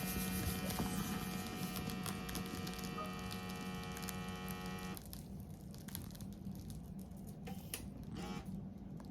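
A steady hum with a higher whine of several steady tones over it; the whine cuts off suddenly about five seconds in while the low hum goes on. Light clicks and taps are scattered through it.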